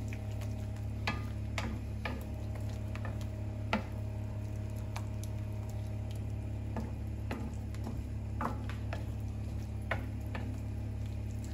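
Wooden spatula stirring and scraping a thick chicken mixture in an enamelled pan on the heat, with irregular scrapes and taps and a light sizzle over a steady low hum.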